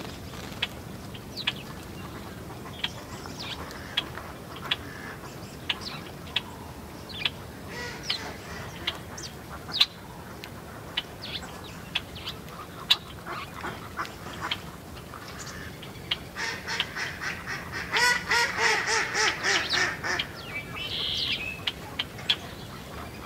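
Small birds at a seed feeder chirping, mostly house sparrows, with short scattered chirps throughout. About sixteen seconds in comes a fast run of repeated calls, about eight a second and lasting some four seconds, which is the loudest part.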